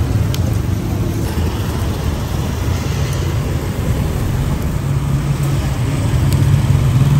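Steady road traffic rumble, with one vehicle's engine growing louder near the end.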